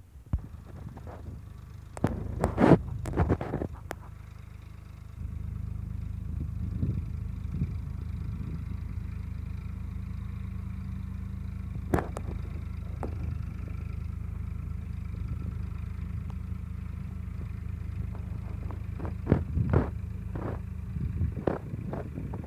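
Farm tractor's diesel engine running steadily under load as it pulls a tillage implement, the steady hum setting in about five seconds in. A few sharp knocks sound near the start, one around the middle and a cluster near the end.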